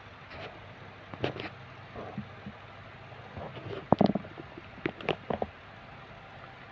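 Room tone with a faint steady low hum, broken by a few short knocks and clicks, the loudest about four seconds in and several more close together just after five seconds.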